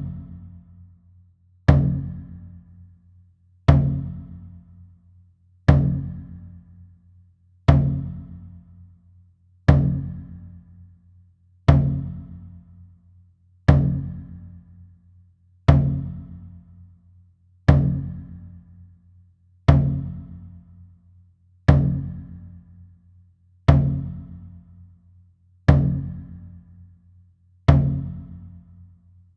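A large drum struck once about every two seconds, each deep stroke ringing and dying away before the next, in a slow, even beat.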